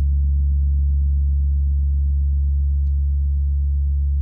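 A 32-inch Tree of Life gong sounding a deep, steady low hum with long sustain, its overtones faintly pulsing as it fades very slowly.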